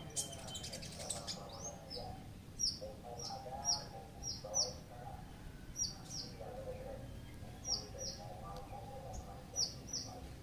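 Songbirds kept as tutor birds singing: sharp, high, falling chips repeated throughout, often in quick pairs, over lower warbling.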